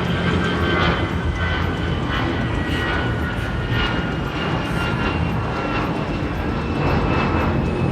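Airliner's jet engines running loud and steady as the plane passes, with a high whine that drifts slowly down in pitch.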